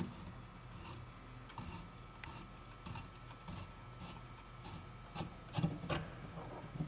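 Regular light ticking, roughly one tick every three quarters of a second, with a louder clack about five and a half seconds in.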